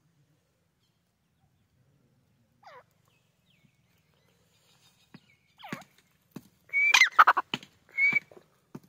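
White francolin (teetar) calling. A single short falling note comes after a few quiet seconds, then a louder run of gliding calls peaks about seven seconds in and ends with a held high note, with a few sharp clicks between the calls.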